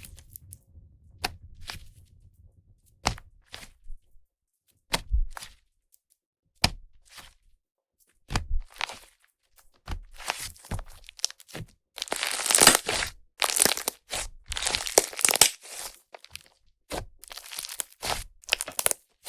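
Airy clay-butter slime made with Yoda clay being squished and worked by hand. Trapped air pops in scattered sharp clicks at first, then turns to dense fizzy, sizzling crackle in long bursts over the second half.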